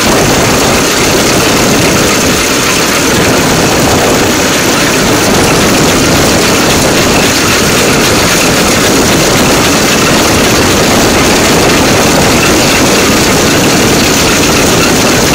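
DL2 rail draisine's engine running steadily as the draisine travels along the track.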